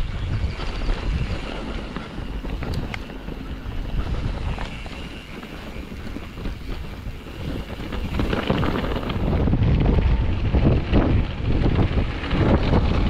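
Wind buffeting the camera microphone on a mountain bike ride: an uneven rumbling rush that eases off mid-way and grows louder over the last few seconds.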